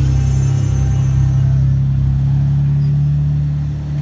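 Engines of trucks passing close by, a steady low drone that eases slightly near the end.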